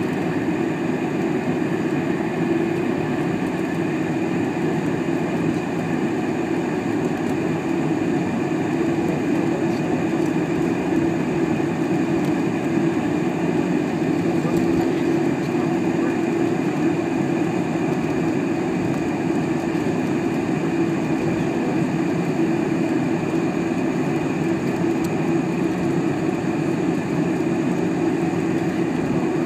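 Steady cabin noise inside a Boeing 747 taxiing after landing, its engines running at low thrust: a constant low hum with a fainter steady high whine above it.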